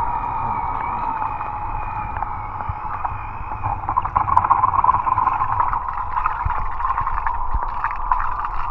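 Steady, slightly wavering whine of the Aiper Seagull Pro robot pool cleaner's pump motor running in the pool, over a watery hiss and a low rumble.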